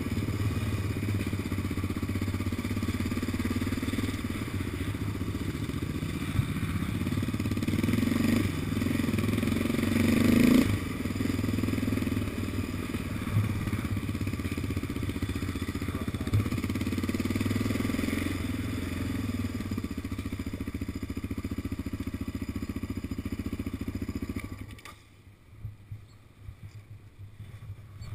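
Yamaha Raptor 700 quad bike's single-cylinder engine running on the move, revving up a few times, notably around eight to ten seconds in. The engine sound cuts off sharply about 25 seconds in.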